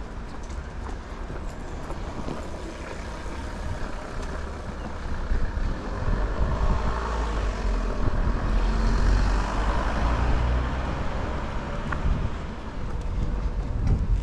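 Street traffic noise with a motor vehicle passing close by, growing louder to a peak a little past the middle and then easing off over a steady low rumble.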